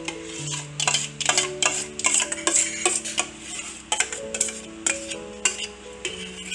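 Background instrumental music with a slow stepping melody, over quick irregular taps and clinks of kitchen utensils as thick cooked barley paste is scraped into a blender jar.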